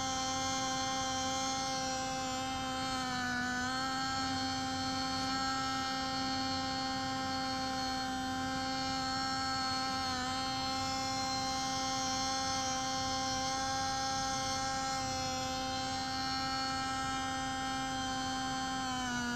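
Radio-controlled Liebherr 922 model excavator running, a steady high electric whine from its motors. The pitch dips briefly a few times as the arm and bucket work.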